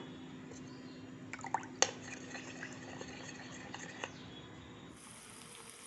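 A spoon clinking against a cup a few times as cornflour is beaten with water into a lump-free slurry, with one sharp clink just under two seconds in.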